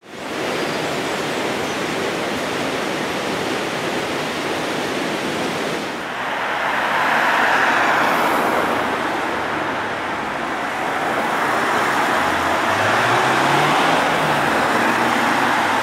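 Road traffic on a town street: a steady hiss of passing cars that swells as vehicles go by, about seven seconds in and again near the end, when a low engine hum rises briefly.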